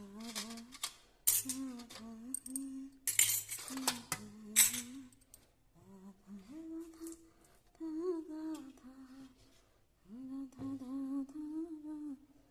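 A woman humming a tune in long held notes, in several phrases. Kitchen utensils clink sharply several times in the first half.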